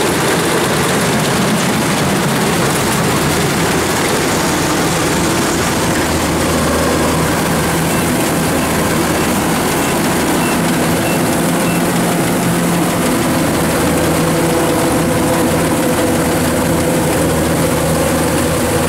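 Kubota DC-105X tracked rice combine harvester working as it cuts rice, its engine and threshing machinery running steadily under load.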